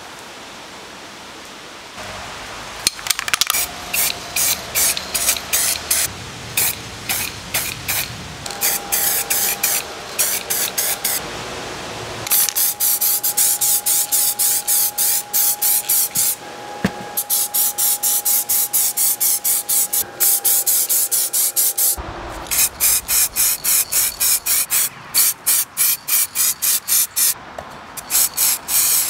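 Aerosol can of high-temperature spray paint spraying in rapid short bursts, about three a second, starting a couple of seconds in. A long continuous spray of nearly ten seconds follows, with a thin steady whistle running through it, and then short bursts again.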